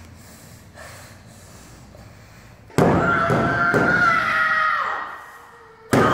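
A woman's long high scream of frustration breaks out suddenly about three seconds in, with thuds of her fists pounding the ring mat, and trails off about two seconds later. Another sudden loud sound starts right at the end.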